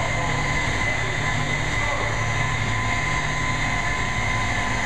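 Steady drone of heavy machinery: a low hum with a constant high whine over an even noise that neither rises nor falls.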